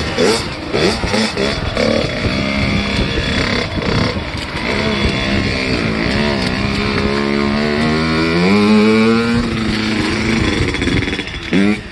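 Kawasaki KX85 two-stroke single-cylinder engine running on its freshly rebuilt top end, revving up and down as the bike rides off. Its pitch climbs long and high about eight seconds in, then eases off and the sound fades as it pulls away.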